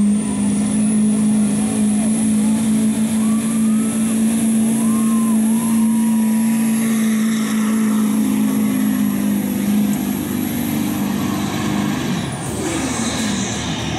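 2011 Duramax LML 6.6-litre V8 turbo-diesel pickup pulling a weight-transfer sled at full throttle: a steady engine drone with a high turbocharger whistle held over it. Both fall away about twelve seconds in, at the end of a full pull.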